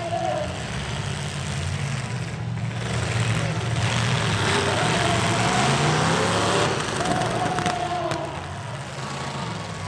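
Engines of wrecked demolition derby pickup trucks running, swelling into a louder, rougher rush of engine noise around the middle and easing back down a little after two-thirds through.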